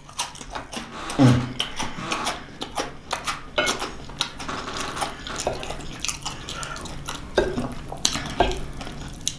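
Wooden fork scraping and clicking against a dinner plate as it picks up stir-fried vegetables, in scattered short strokes.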